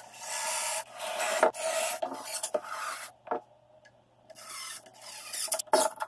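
Cordless drill whirring in several short bursts as it works into the pine top rail to fit figure-eight fasteners, with a quiet pause a little past halfway.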